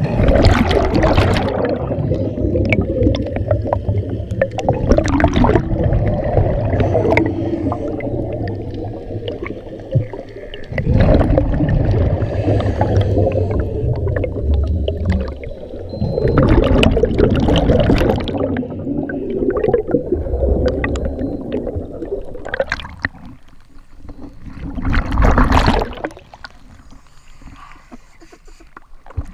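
Scuba exhaust bubbles rushing and gurgling past the underwater microphone in long, loud bursts a few seconds apart. Near the end the bubbling stops and only quieter water sloshing remains as the diver floats at the surface.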